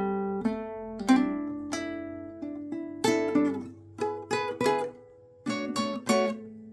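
Guitar playing blues: chords and single notes plucked one after another, each ringing out and fading before the next.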